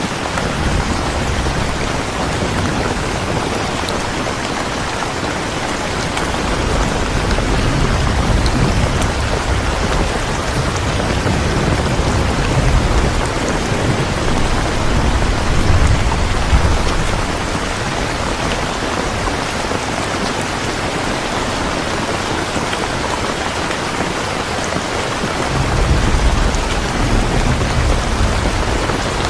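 Steady heavy rain hissing evenly, with low rumbles of thunder that swell and fade twice.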